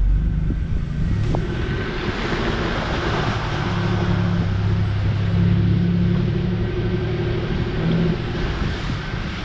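A motor vehicle's engine running steadily while driving, over continuous tyre and road noise.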